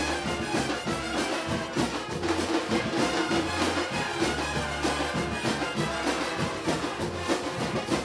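A murga's brass and percussion playing together with a symphonic band: trumpets and trombones over bass drums, with long held low bass notes.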